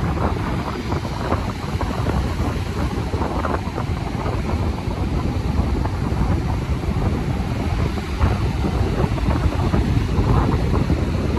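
Wind buffeting the microphone with a steady low rumble, over the continuous wash of ocean surf breaking on a sandy beach.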